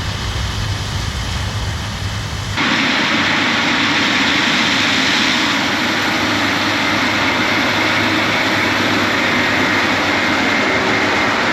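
Heavy vehicle engines running steadily. About two and a half seconds in, the sound changes abruptly from a low rumble to a louder, hissier running noise.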